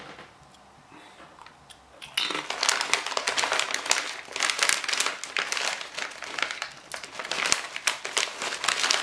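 A crisp packet crinkling as it is handled, starting about two seconds in and going on as an irregular, dense crackle.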